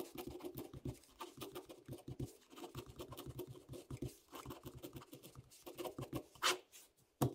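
Pen scratching on paper as words are written by hand: a fast, uneven run of short strokes, with two louder strokes near the end.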